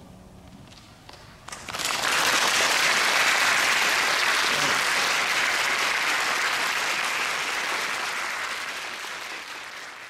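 Audience applauding: a few scattered claps, then full applause breaking out about two seconds in and slowly fading toward the end. The last piano note dies away at the very start.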